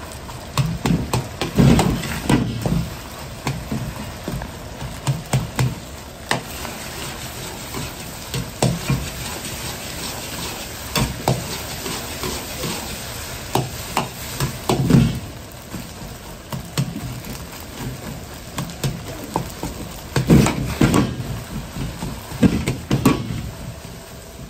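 A metal ladle scraping and clanking against a wok as egg fried rice is stir-fried, the knocks coming in irregular clusters over a steady sizzle.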